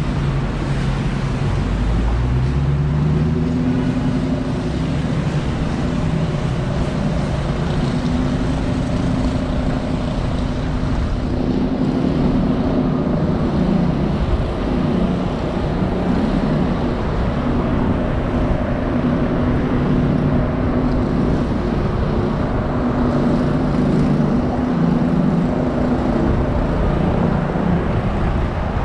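Car engine and road noise in city traffic: a steady engine hum over tyre and traffic noise. About two seconds in, an engine rises in pitch as it speeds up.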